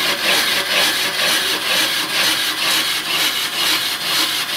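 On-car brake lathe turning a brake rotor on the vehicle's hub, its cutting bits shaving the spinning rotor: a steady rasping hiss that pulses about three times a second.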